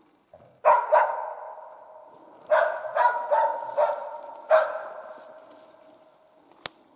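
Hunting laika barking, about seven barks in small groups, each one ringing on in a long fading echo.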